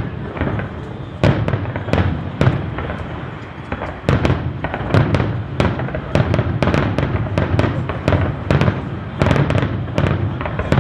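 Fireworks display going off: a rapid run of sharp bangs and cracks, several a second and some in quick clusters, over a continuous low rumble.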